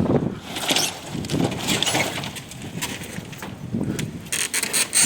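Wind buffeting the microphone in uneven gusts, with patches of hiss.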